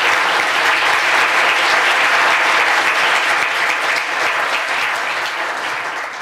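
Conference audience applauding, steady, then fading away near the end.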